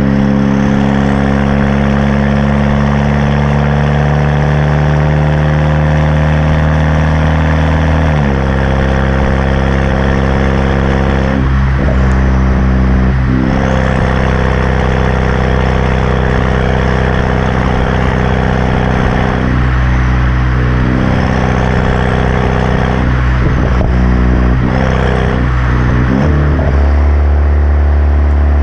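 Exhaust of a BMW 328i's turbocharged 2.0-litre four-cylinder, with the muffler and resonator deleted and an aftermarket downpipe, idling loudly with a deep drone. Its idle speed steps down and back up several times.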